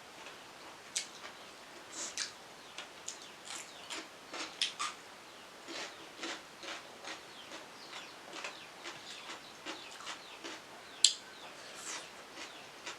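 Close-miked chewing and mouth sounds of someone eating: irregular crisp crunches, wet smacks and clicks, a few each second, with one sharper click about eleven seconds in.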